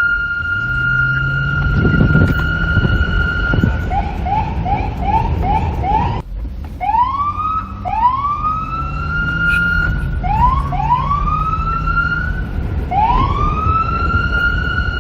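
Police siren cycling through its tones: a held steady tone, then from about four seconds in a fast yelp of six quick rising chirps that breaks off suddenly, followed by a run of rising wails that climb and hold at the top, one after another. A low rumble of wind noise runs underneath.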